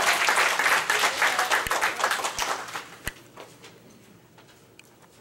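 Congregation applauding, the clapping dying away about three seconds in, with one sharp click as it fades.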